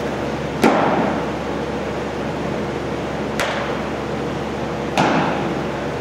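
A pitched baseball smacks into a catcher's mitt about half a second in, the sharp pop echoing around the big hall. Two more sharp smacks of balls landing in gloves come a few seconds later, over a steady background hum.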